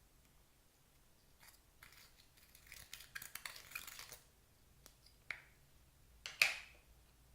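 Clear slime being handled up close: a run of small sticky crackles and clicks, then two sharper snaps near the end, the second the loudest.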